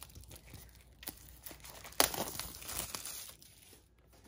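Crinkling and rustling from a peeled-off paper pull-tab seal strip and the cardboard Apple Pencil box being handled, with a sharp crackle about two seconds in followed by about a second of rustling.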